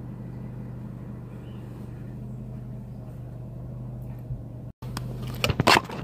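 Car engine running as the car rolls slowly, a steady low hum heard from inside the cabin. It cuts off abruptly about three quarters of the way in, followed by a few sharp knocks of the phone being handled.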